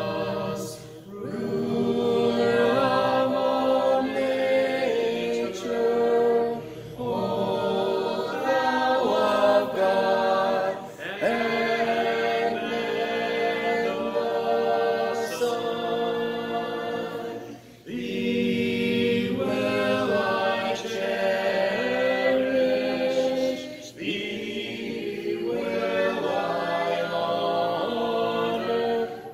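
A group of voices singing a hymn a cappella, without instruments, line after line with short breaks between phrases.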